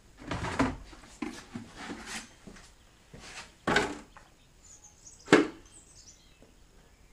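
Irregular knocks and clatter of buckets and a large pot of cooked potatoes being handled on a tiled floor, as the potatoes are sorted by hand into the buckets. The sharpest knock comes a little past halfway.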